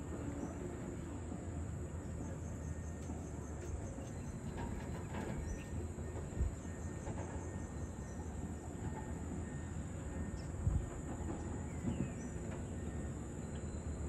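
Distant heavy road-construction machinery, dump trucks and earthmoving equipment, running as a steady low rumble, with a few dull thumps about six and ten to eleven seconds in. A steady high insect trill runs underneath.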